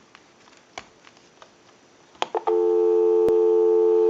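A few faint clicks, then about two and a half seconds in, a steady, unbroken telephone dial tone comes on and holds, played through the test amplifier.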